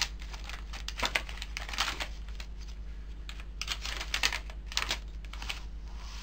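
Paper pages of a handmade journal being turned and handled: short dry rustles and flaps in several clusters, over a low steady hum.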